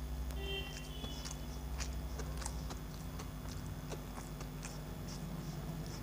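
Close-up eating sounds: a man chewing a mouthful of rice and mixing more rice and curry with his fingers on a steel plate, giving scattered small clicks and smacks over a steady low hum.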